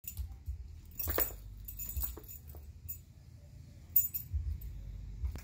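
A husky's collar and leash hardware jingling and clinking in short, irregular bursts as the dog jumps and lands, with light knocks of its paws on the tile floor.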